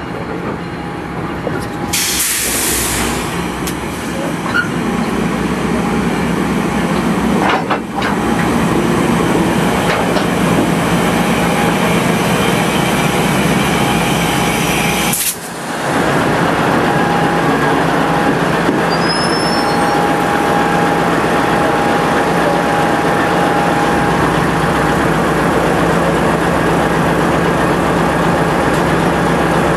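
GE Genesis diesel locomotives (Amtrak P42DC and P40DC) running right alongside, a steady engine drone with a constant hiss. About two seconds in comes a loud burst of air hissing from the air brakes.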